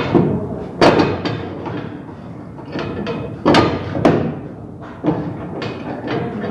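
About half a dozen sharp knocks at irregular intervals from hand work on the piping of a kitchen fire-suppression system.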